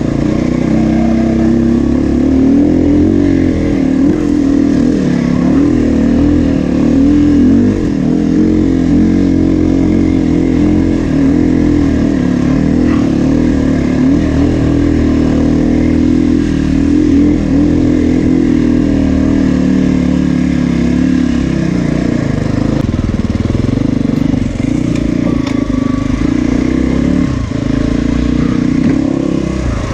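Dirt bike engine running continuously at low to middling revs, its pitch wavering up and down with the throttle.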